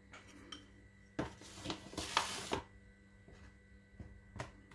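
Quiet handling sounds at a plastic blender jar: a few light clicks and knocks, and a rustling scrape of about a second near the middle.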